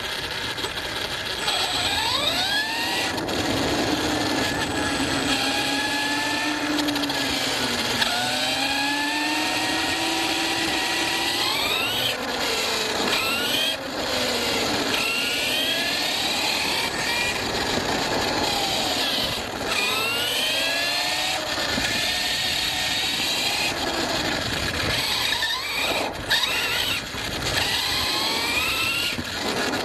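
ARRMA Fireteam 6S RC car's brushless motor and drivetrain whining, the pitch rising again and again as it accelerates and dropping between bursts of throttle. Under it is a constant rumble and rattle from driving over rough off-road ground.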